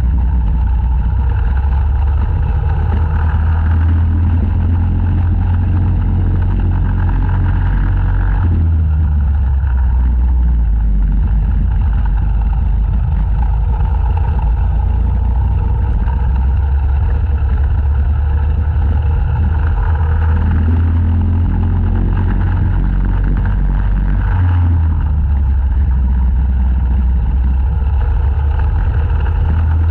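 Racing kart engine running hard at speed, heard close up from onboard the kart. Its note shifts twice, about a third of the way in and again later, as the kart goes through corners.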